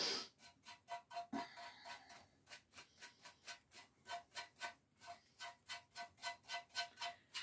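A stiff brush dabbing dark wax into the crevices of a lamp: quick light taps, about four a second, each with a short ring, with a brief pause about two seconds in.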